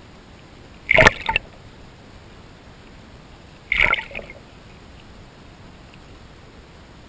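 Two brief splashes heard from underwater, about a second in and just under four seconds in, each made of a few quick strokes: bait (corn kernels and cat kibble) landing on the pond surface above the camera.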